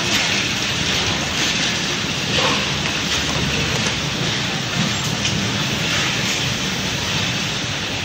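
Steady noisy workshop hiss with a few faint clicks from an HY-B02 charger-plug labeling machine as plugs are loaded into its fixture and wrapped.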